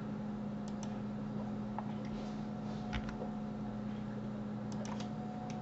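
Steady low hum of room noise on a desk microphone, with a few faint, scattered clicks from a computer mouse and keyboard as vertices are moved in Blender.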